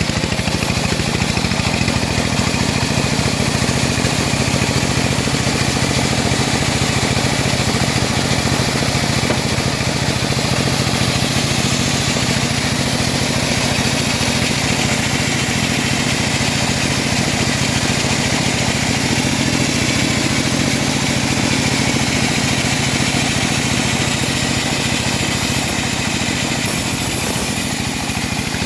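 Engine of a homemade band sawmill running steadily, driving the saw blade.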